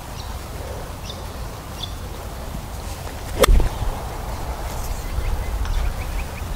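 A 7-iron striking a golf ball: one sharp crack about three and a half seconds in, over steady wind rumble on the microphone.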